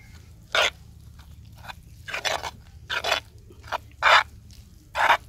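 Metal spoon stirring gram flour, spices and a little water into batter in a terracotta bowl, scraping against the clay in a series of short, irregular strokes.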